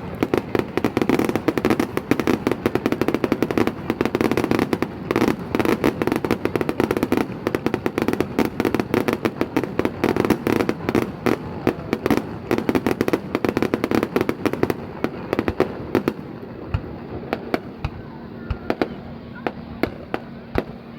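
Fireworks crackling and popping in a dense, rapid barrage, thinning to scattered pops about fifteen seconds in.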